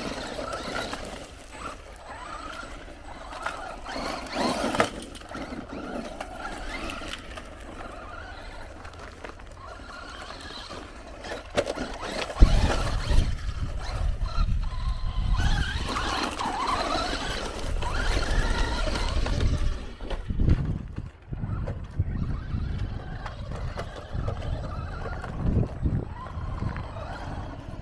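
Brushless electric motor and drivetrain of a Traxxas Rustler 4x4 VXL RC stadium truck whining up and down in pitch as the throttle is worked. A heavy low rumble joins about halfway through.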